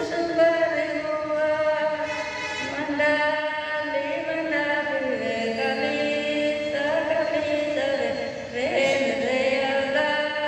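Voices singing a slow song with long held notes that slide from one pitch to the next.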